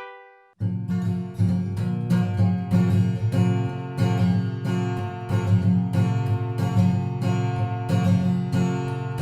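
Instrumental music: the last piano note dies away, then about half a second in an acoustic guitar starts strumming a steady rhythm.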